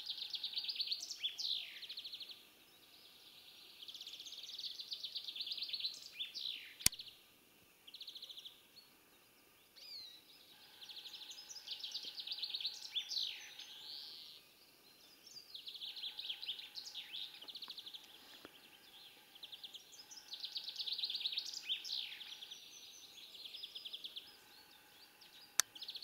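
A songbird singing the same short song over and over every few seconds, each a high, rapid trill that ends in quick falling notes. Two sharp clicks cut in, one about seven seconds in and one near the end.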